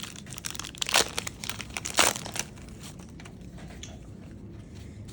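Trading-card pack wrapper crinkling and tearing as it is opened, with two loud crackling rips about one and two seconds in, then fainter rustling.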